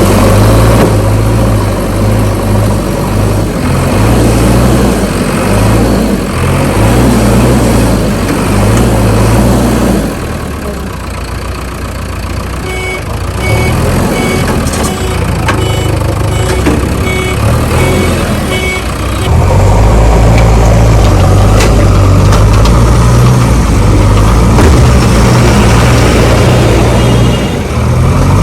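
Heavy diesel engines working hard as a backhoe pushes a loaded 16-wheel truck stuck in a pit, the engine note pulsing unevenly. It drops back about a third of the way through, with a run of short, evenly spaced beeps like a reversing alarm for several seconds. Then the engines come back loud and steady.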